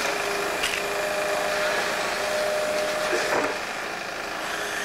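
Excavator engine running steadily with a steady whine; a higher whining tone drops away about three and a half seconds in.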